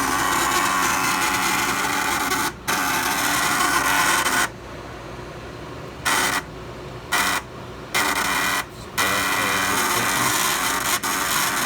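Condo gas furnace's draft inducer motor and fan making a loud rasping rattle that cuts out abruptly, returns in short bursts, then runs on steadily. This is an intermittent vibration noise that the owners suspect comes from the fan blade or its mounting bracket.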